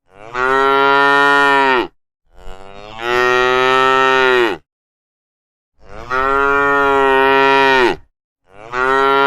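Cows mooing: four long moos of about two seconds each, with short gaps between them, each falling in pitch at the end.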